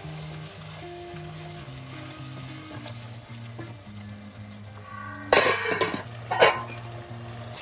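Chicken curry sizzling in a pan as it is stirred with a slotted spatula, with two loud bursts of stirring and sizzle near the end. Soft background music plays underneath.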